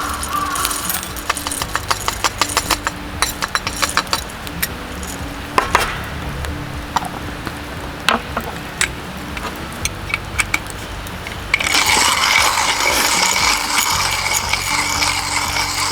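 Light metal clinks and ticks of camp cookware being handled, with faint background music. About twelve seconds in, a steady hiss begins suddenly.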